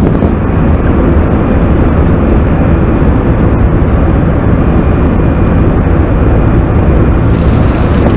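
ASA-Lift self-propelled carrot harvester running, heard close to its chain elevator and rollers: a loud, steady engine drone under a dense mechanical rattle of the conveyors carrying carrots.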